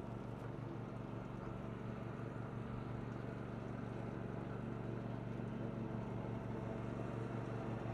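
Faint steady low hum over a soft even background noise, growing a little louder towards the end.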